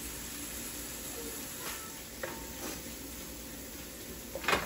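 Beef roast sizzling faintly in a wide metal uruli, a steady soft hiss with a few light clicks. Near the end, a wooden spatula scrapes and knocks against the pan as the beef is stirred.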